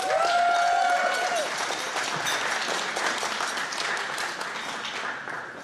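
Audience applauding, dying down near the end, with one voice's long held whoop of cheering at the start.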